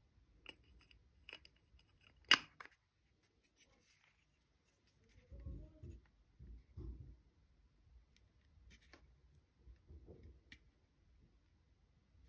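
Rear cap of a Fujifilm XF18mm F1.4 lens twisted onto its metal bayonet mount, clicking a few times with one sharp snap about two seconds in. Then hands grip and rub the lens barrel, with faint ticks as the aperture ring is turned.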